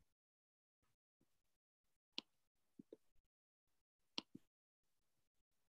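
Near silence, broken by a few faint, short clicks about two and four seconds in.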